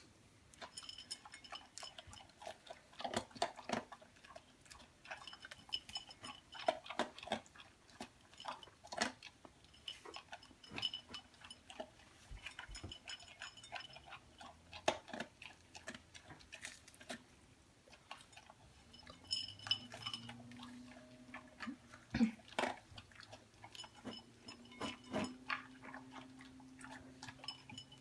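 Irregular small clicks and taps, like chewing or something knocking lightly on a dish, with a low steady hum coming in about twenty seconds in.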